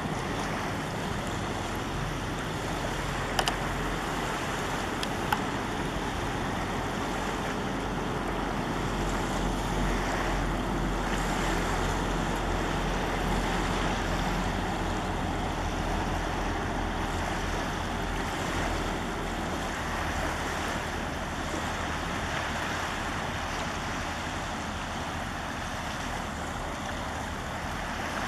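Steady drone of a Meteor hydrofoil's diesel engines as it cruises past, blended with wind on the microphone and small waves lapping on the shore. Two short clicks a few seconds in.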